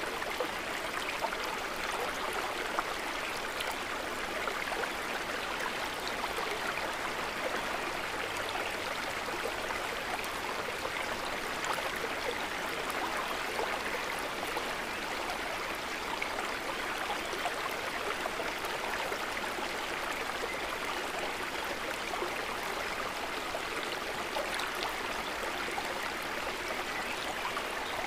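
Water trickling and gurgling steadily in a soft, even wash of small splashes.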